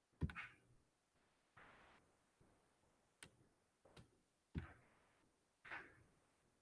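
Near silence broken by about six faint, irregular clicks and soft taps.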